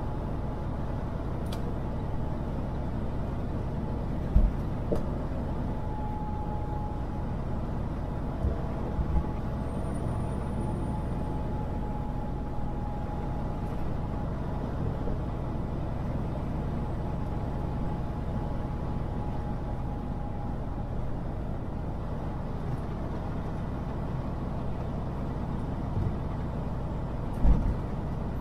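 Semi truck driving on the road: a steady low rumble of engine and road noise, with a few short thumps, the loudest about four seconds in and near the end.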